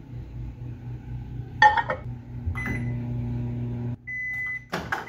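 Farberware microwave oven: a clunk about one and a half seconds in as the door shuts, then a steady low hum as it runs. Near the end the hum stops and the high end-of-cycle beep sounds twice, with a loud click between the beeps.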